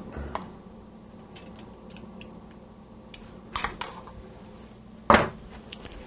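A few short, sharp knocks and clicks of kitchen things being handled, over a faint steady hum: a light one just after the start, two close together about three and a half seconds in, and the loudest about five seconds in.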